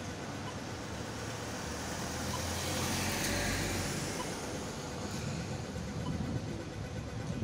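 Street traffic: a box truck drives by, loudest about three seconds in, followed by the steady hum of an approaching tram.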